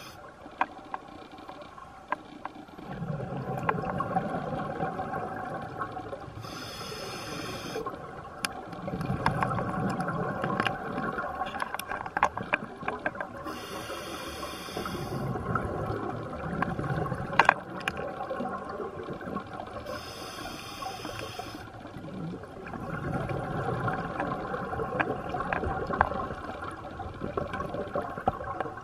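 Scuba regulator breathing heard underwater: slow breaths about every seven seconds, each a short hiss followed by a longer low rush of exhaled bubbles, with scattered small clicks throughout.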